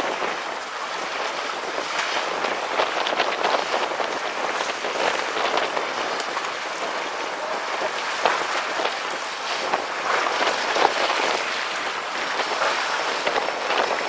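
Choppy seawater splashing and sloshing against the hull of a fishing boat: an even hiss of water broken by many small irregular splashes.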